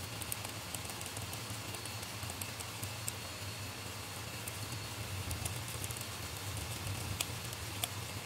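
Small screwdriver clicking and scraping on tiny screws as a beadlock ring is screwed onto a 3D-printed RC crawler wheel: faint, irregular clicks, a few sharper ones, over a steady background hiss and low hum.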